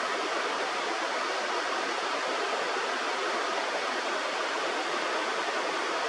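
Steady rush of flowing river water, even and unbroken, with no bird calls.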